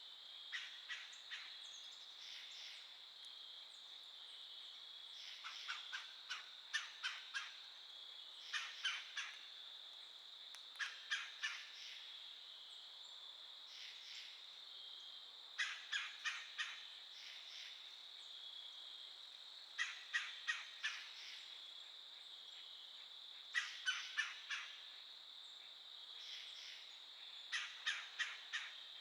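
A woodpecker calling in short groups of three to five quick notes, a group every few seconds, over a steady high drone of crickets.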